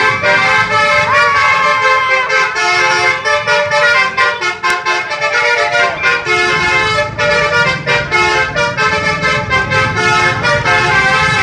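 Multi-tone 'telolet' bus horn playing a melody, its notes changing pitch in quick steps, with sharp clicks or beats running through it.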